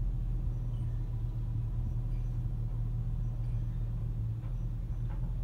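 2007 Chevrolet Tahoe's V8 idling in neutral, a steady low rumble heard from inside the cabin.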